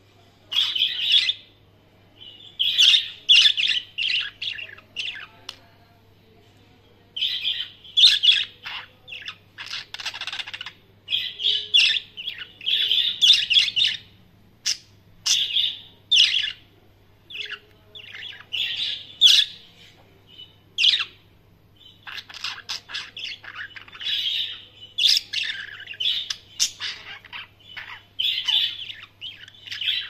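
Two pet budgerigars chirping and warbling in quick runs of short chirps, broken by a couple of brief pauses.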